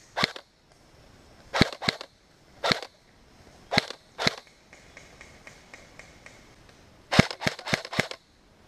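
Electric airsoft rifle firing sharp single shots, one or two at a time with short pauses, then a quick run of about five shots near the end.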